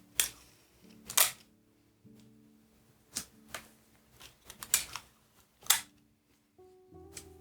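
Adhesive tape being pulled and torn while taping sheets of card stock together: a handful of short, sharp rips and crackles, the loudest about a second in and near the six-second mark.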